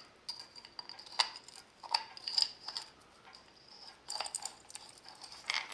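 Scattered light metallic clicks and clinks as the steel hub shell of a Fichtel & Sachs Pentasport five-speed hub is slid onto its greased internal gear and brake assembly and turned by hand to seat it, with a small cluster of clicks near the end.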